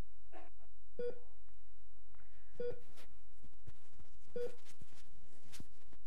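Hospital heart monitor beeping slowly, a single short mid-pitched tone about every one and three-quarter seconds, three times.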